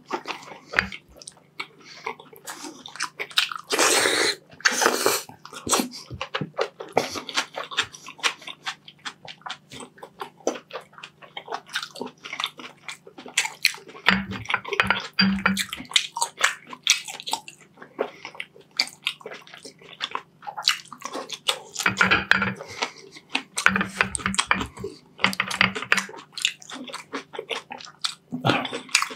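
Close-miked wet chewing and mouth smacks of a person eating braised beef short rib adobo: a dense run of small clicks and smacks, louder about four seconds in.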